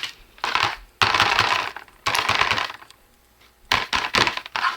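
Hands handling a smartphone and its charger cable. There are three rustling, scraping bursts, then a quick run of clicks near the end.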